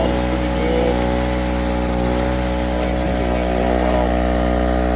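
Aceup Energy 1,200 W portable gas generator running steadily at an even speed, warmed up after a warm restart.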